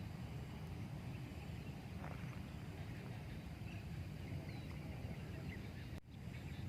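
Rural outdoor ambience: a steady low rumble with scattered faint, short bird chirps. The sound drops out briefly about six seconds in.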